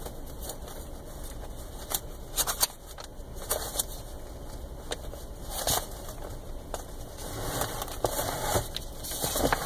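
Papers and other items being rummaged through and handled by hand: scattered rustles, crinkles and clicks over a steady low rumble.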